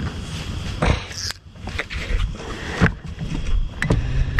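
Low rumbling wind noise on the microphone, with several sharp knocks and clicks of fishing gear being handled on a boat, and a low steady hum that starts near the end.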